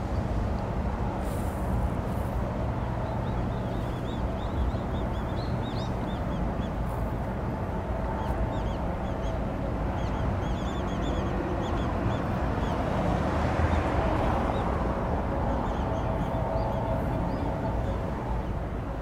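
Steady low drone of a passing cargo ship's diesel engine, swelling a little as the superstructure and funnel come by. Many birds chirp over it throughout.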